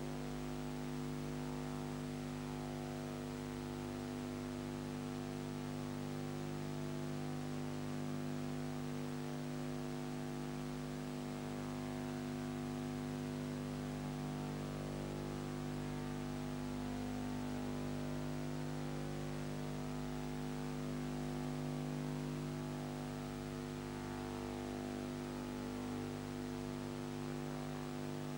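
Steady electrical mains hum with a faint hiss underneath, unchanging throughout. It is the noise floor of a silent home-movie film transfer, with no sound from the scene itself.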